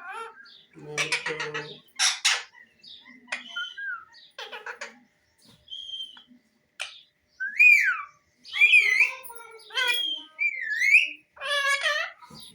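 A parrot calling: short harsh squawks and clicks, then, from about halfway, louder whistles that sweep up and down in pitch, ending in a warbling call.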